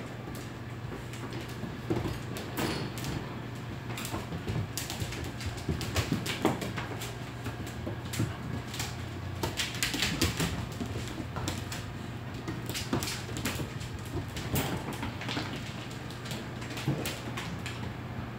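Dogs play-wrestling on a tile floor: irregular clicking of claws, scuffling and scraping, with sharper knocks now and then.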